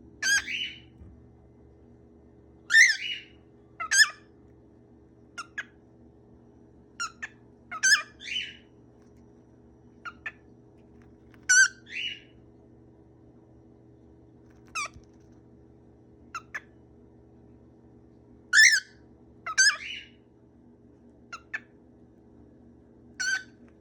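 Pet bird calling in short bursts, about fifteen brief calls at irregular gaps of one to two seconds.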